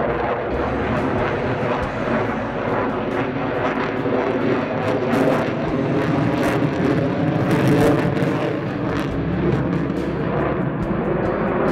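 Jet noise from an F-35 Lightning II's single turbofan engine, a steady loud roar as the fighter flies a tight turn overhead.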